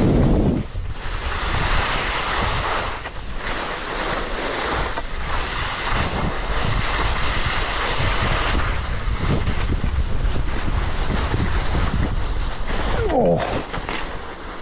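Skis sliding and scraping over soft spring snow, with wind rushing over the microphone; the noise rises and eases again every few seconds as the skier turns.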